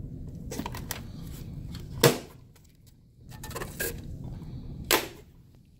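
Gloved hands handling and fitting Nayax card reader parts inside a vending machine cabinet: rustling and small knocks, with two sharp clicks about three seconds apart, the first the louder.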